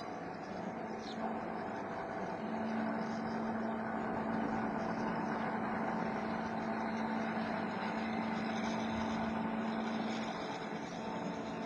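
Homemade CNC machine running, a steady machine noise with motor tones. A low hum strengthens a couple of seconds in and eases near the end.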